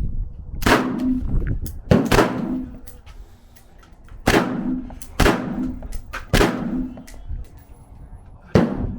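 Six gunshots, unevenly spaced, each a sharp crack that trails off in echo.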